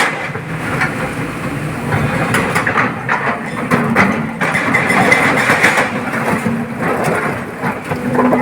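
Excavator loading broken stone into a tipper truck: rocks crashing and scraping against the steel body in a series of knocks, with a diesel engine running underneath.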